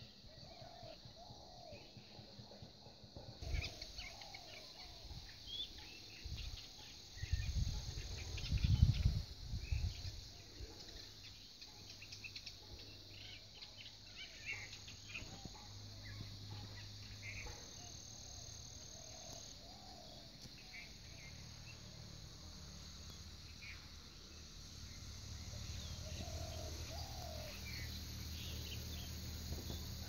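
Wild birds chirping and calling in scattered short notes over a steady high insect buzz that sets in a few seconds in. A cluster of loud low rumbling thuds comes about seven to ten seconds in.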